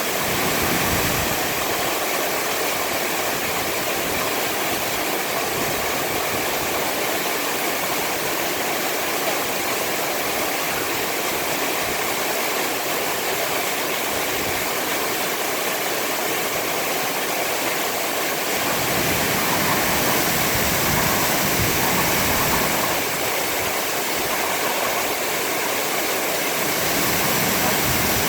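Waterfall: a steady rush of falling water, a little louder for a few seconds past the middle and again near the end.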